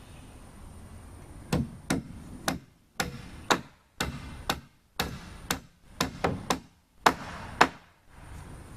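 A hammer driving nails into wooden wall framing: about fourteen sharp blows, roughly two a second, the last two the loudest.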